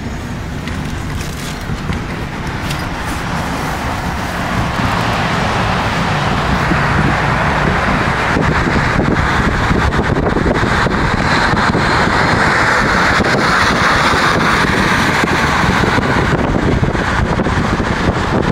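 Road and wind noise of a moving car, growing louder about four seconds in and then holding steady.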